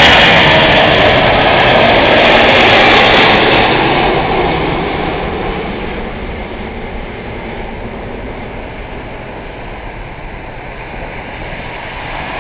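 Four-engine Airbus A340 jet airliner at takeoff thrust, lifting off and climbing away. The engine noise is a loud, steady rush for about the first four seconds, then fades gradually as the aircraft recedes.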